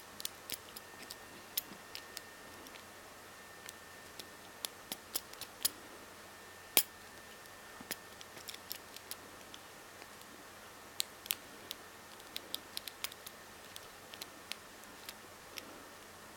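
Small, irregular metal clicks and scrapes of a homemade hacksaw-blade lock pick working the pins of a padlock under a tension wrench, a few sharper ticks among them.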